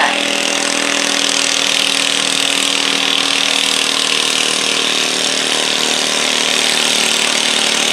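Stock garden tractor's engine running at steady high revs under full load as it drags a weight-transfer pulling sled, the pitch holding even throughout.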